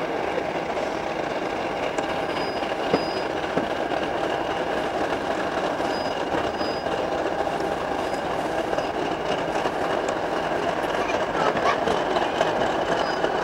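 A train running along the track: a steady rolling rumble with occasional sharp clicks and a few brief, high-pitched squeals from the wheels.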